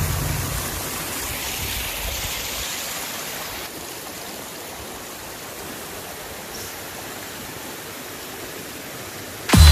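Fast-flowing creek water rushing in an even, steady hiss. Music comes in suddenly near the end.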